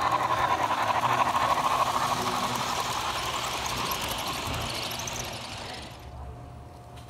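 Model steam locomotive and passenger cars rolling past on the track, a dense, steady rush of wheel and motor noise with rapid clicking over the rails. About six seconds in it drops abruptly to a much quieter, faint steady whine.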